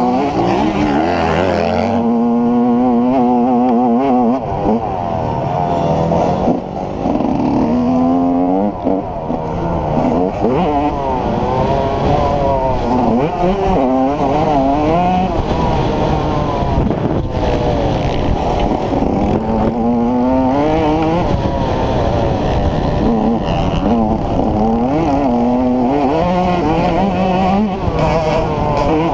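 Yamaha YZ125 single-cylinder two-stroke motocross engine ridden hard, its pitch repeatedly climbing and dropping as the throttle is worked and gears change, heard from the rider's helmet camera.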